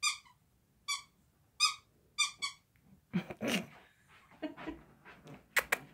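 A squeaky dog toy squeaked five times in quick, short squeaks. After that come some shuffling noises and two sharp clicks near the end.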